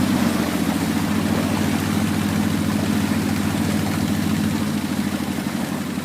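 A boat's engine running steadily at a low, even pitch, easing off slightly near the end.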